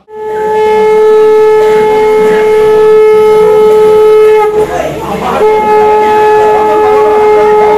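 Conch shell (shankha) blown in a long, loud, steady note, the auspicious call of a Bengali Hindu wedding ritual; the note breaks off for about a second around the middle for a breath, then sounds again.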